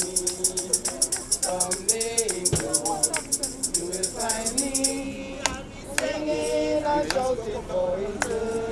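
Voices singing a hymn together, with shaken hand percussion rattling a fast, even beat that stops about five seconds in, while the singing carries on.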